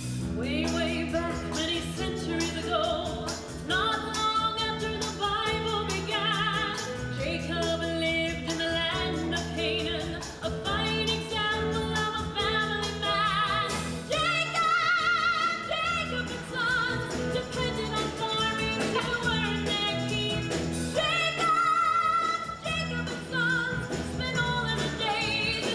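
Stage-musical pit orchestra playing, with a steady beat and a wavering vibrato melody line that sounds close to singing.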